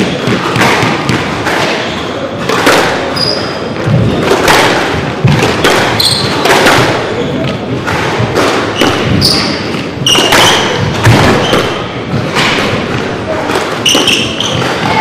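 Squash rally: the ball struck by rackets and hitting the court walls in a string of irregular thuds, with short high squeaks from players' shoes on the wooden floor.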